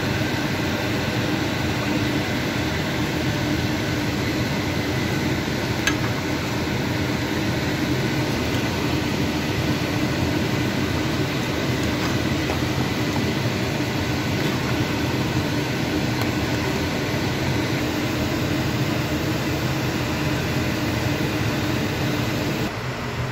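Steady mechanical whir with a low hum, unchanging for most of the stretch, dropping slightly quieter near the end.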